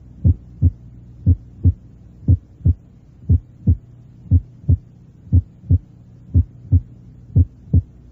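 Normal heart sounds, a steady lub-dub about once a second: the first heart sound as heard at the apex of the heart, where its two components lie so close together that it sounds like a single sound, followed by the second heart sound. A steady low hum runs underneath.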